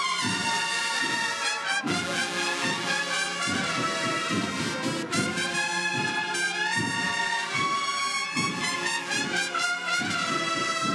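A Seville Holy Week cornet-and-drum band (banda de cornetas y tambores) playing a processional march: bugle-type cornets carry held melody notes over a steady drum rhythm.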